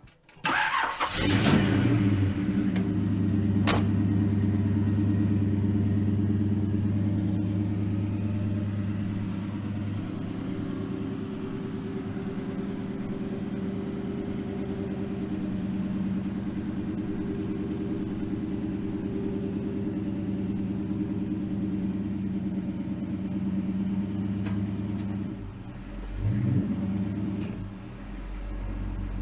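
An old car's engine cranks and starts about a second in, then runs steadily at idle, with a short change in its sound near the end.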